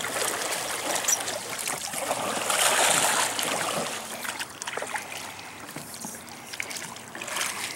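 Water lapping and trickling around a small boat being paddled; the wash of water swells about two seconds in, then dies down.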